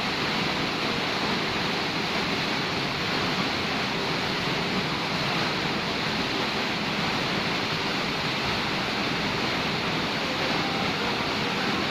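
Steady rush of a waterfall, an even wash of falling water with no change throughout.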